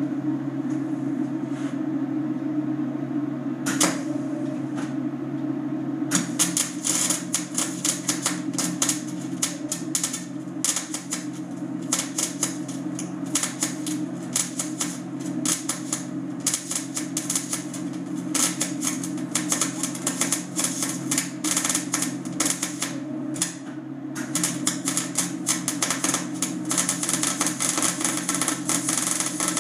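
Electric arc welding on steel tubing: a steady hum from the Lincoln arc welder, and from about six seconds in the dense, irregular crackle and sizzle of the welding arc, with a short break about three-quarters of the way through.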